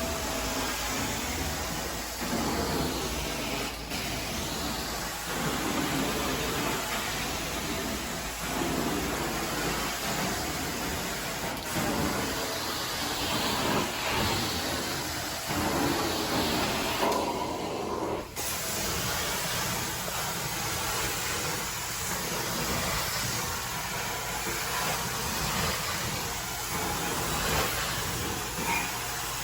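Carpet-cleaning wand doing hot-water extraction: a steady hiss of spray and suction that swells and eases with each pass of the wand. The high hiss cuts out for about a second a little past halfway, then comes back.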